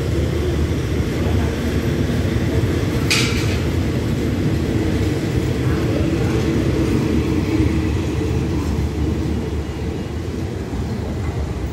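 Passenger train coaches rolling out of the station on the rails, a steady low rumble of wheels on track as the train pulls away. A brief sharp high-pitched noise cuts through about three seconds in.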